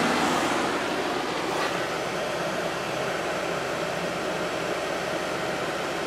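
GE 8100 BTU window air conditioner running in cooling mode: a steady rush of fan air with a faint low hum beneath it.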